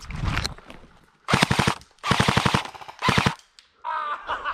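An airsoft rifle fires three rapid full-auto bursts about a second apart. The middle burst is the longest.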